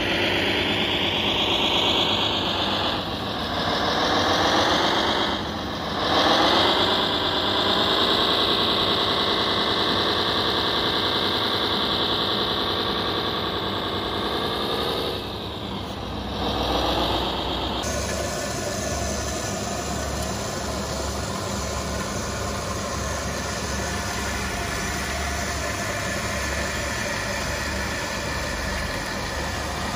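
Radio-controlled model truck running: a motor whine that dips and rises in pitch several times as it slows and speeds up. About 18 s in, the sound cuts to a steadier engine-like running sound with a low pulsing beneath it.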